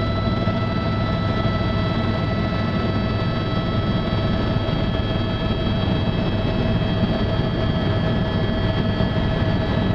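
Light aircraft engine and propeller droning steadily, heard from inside the cabin: a deep rumble with a constant high whine over it.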